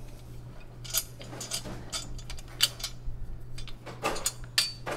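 Irregular metal clicks and clinks as the steel arm of a TV tilt mount is handled and its tilt-lock parts are fitted on, over a steady low hum.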